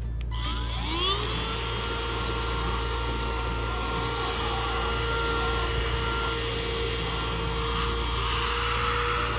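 Eufy HomeVac H11 Pure cordless handheld vacuum cleaner switching on, its whine rising in pitch as the motor comes up to speed in the first second. It then runs steadily with a whine over a rush of air while the nozzle sucks crumbs off a fabric sofa cushion.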